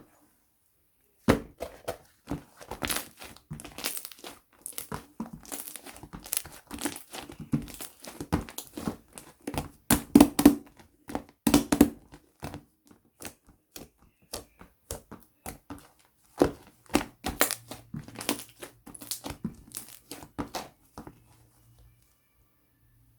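Milkshake slime being squished and pressed by hand, giving a dense run of irregular crackly pops and clicks that starts about a second in and stops shortly before the end.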